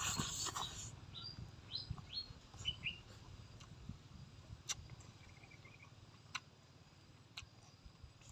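A short hiss of air blown through pursed lips while eating, then small birds chirping in the background with several short rising calls and a brief trill. A few sharp clicks from eating come through the quiet that follows.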